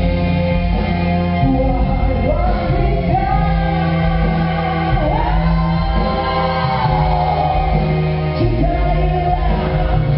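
Live stage musical: singing with long held notes that bend in pitch, over band accompaniment with a steady bass line.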